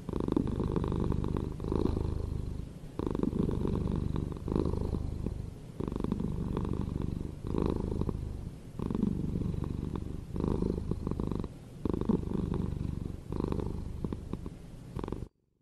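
A cat purring: a steady low rumble that swells and eases with each breath, about every second and a half. It cuts off abruptly near the end.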